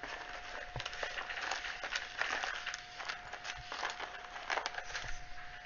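Irregular small clicks, taps and rustles of hands handling small model pieces on a cutting mat, over a faint steady tone.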